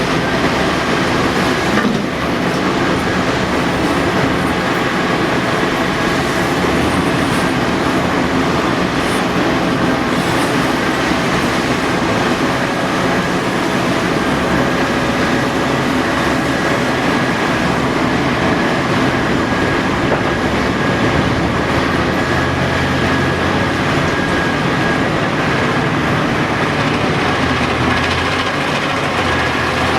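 Heavy earthmoving machinery working: a CAT 5130B excavator and haul-truck diesels running steadily under load, with continuous mechanical clatter and whine.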